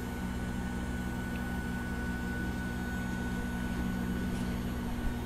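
Steady electrical hum with a thin, constant high whine from a powered-up but idle Snapmaker 2.0 CNC machine.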